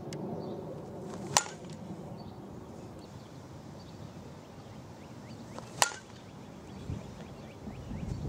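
Two sharp cracks of a softball bat hitting the ball off a batting tee, about four and a half seconds apart, over quiet outdoor background.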